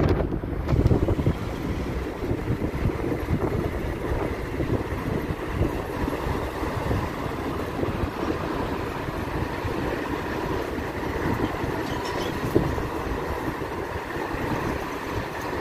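Steady road noise heard from inside a moving car, a low rumble of tyres on asphalt mixed with wind.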